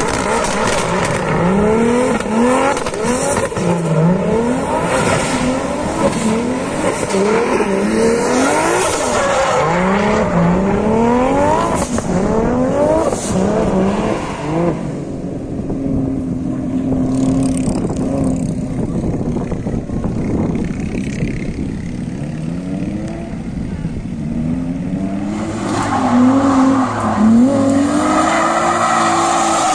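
A drift car's engine is revved up and down in quick rising sweeps, roughly once a second, with tyre squeal as the car slides sideways. Midway the engine settles to a steadier, quieter tone, and rising revs return near the end.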